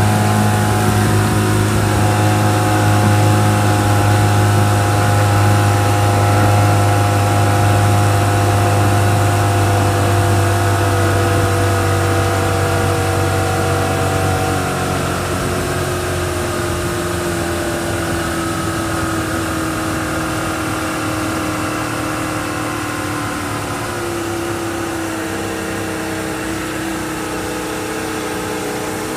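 1960 Mercury Merc 700 two-stroke outboard motor running steadily under way, with the rush of the boat's wake. About halfway the engine is throttled back: its note drops a little in pitch and gets quieter.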